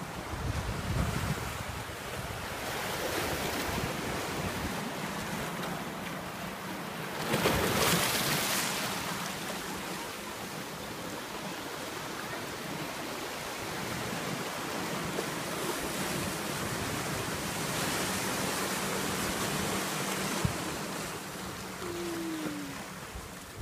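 Small waves washing in and draining back over black lava rocks at the shoreline, a continuous rush that swells and eases. The loudest surge comes about eight seconds in.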